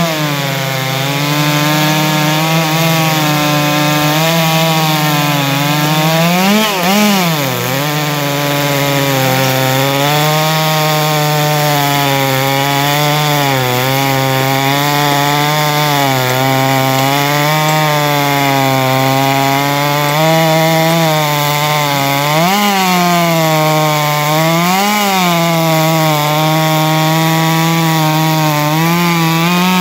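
Chainsaws running at full throttle, ripping logs lengthwise along the grain. The nearest saw's two-stroke engine note wavers continuously as the chain loads and eases in the cut, rising sharply a few times, about seven seconds in and twice more near the twenty-three and twenty-five second marks.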